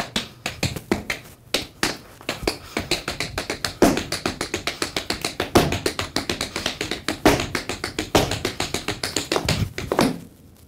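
Tap shoes on a wooden stage floor: a fast, unbroken run of taps, several a second, with louder accented strikes every second or two, stopping shortly before the end.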